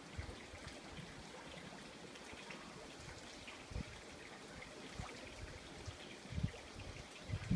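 Faint, steady trickle of running water, with a few short low thumps of wind on the microphone.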